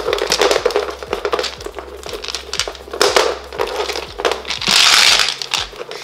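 Iridescent plastic film wrapping crinkling and crackling as it is slid off a clear acrylic box and handled, with a louder crinkle about five seconds in.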